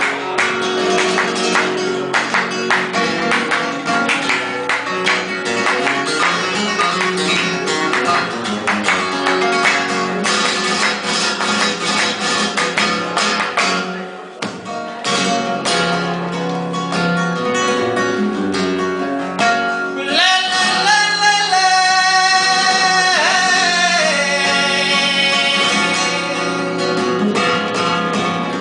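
Flamenco guitar playing, with fast strums and plucked runs throughout. About two-thirds of the way in, a male flamenco singer comes in over it with one long, wavering held phrase.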